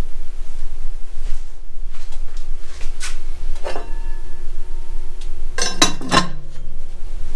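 A cast-iron lid being set on a cast-iron Dutch oven: a couple of light clinks, then a quick cluster of ringing metal clanks about six seconds in, over a steady low hum.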